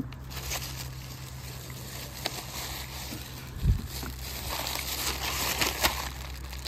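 Plastic bag rustling and crinkling as litter is picked up and handled, with scattered small clicks and one dull thump a little past halfway.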